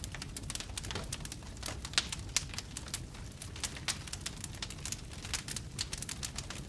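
Campfire burning, the wood crackling with many irregular sharp pops and snaps over a low steady rumble; two louder pops come about two seconds in.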